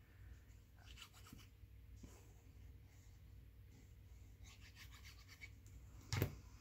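Faint rubbing and rustling of paper being handled and glued down by hand, with a short soft knock about six seconds in.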